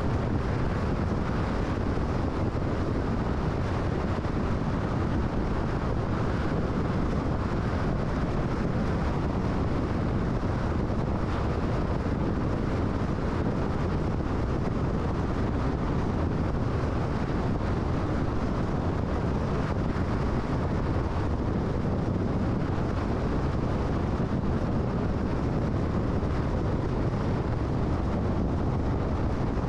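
Steady road noise of a car driving on a freeway: a constant low rumble of tyres and wind with no distinct tones or changes.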